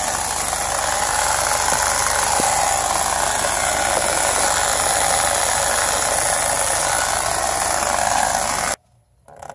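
2017 Honda Civic running in gear on jack stands with its front axle spinning, making a steady rubbing, screeching noise that the owner traces to the CV axle boot rubber rubbing on itself. It cuts off suddenly about nine seconds in.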